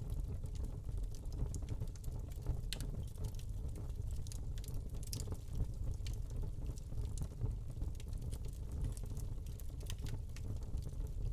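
Wood fire burning in a fireplace: a steady low rumble of the flames with irregular sharp crackles and pops from the burning log.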